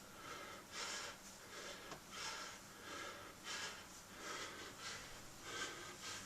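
A man breathing hard in time with dumbbell lifts: short, fairly faint breaths in and out that repeat steadily, one every second or less.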